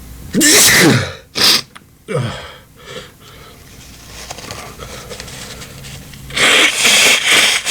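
A man sneezing repeatedly in an allergy sneezing fit: a loud sneeze about half a second in, shorter sharp sounds over the next couple of seconds, then after a building stretch a run of loud sneezes near the end.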